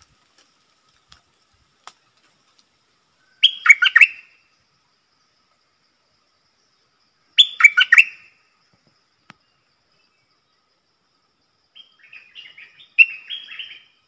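A bulbul singing three short phrases of quick bright notes several seconds apart; the last phrase, near the end, is longer and more broken up.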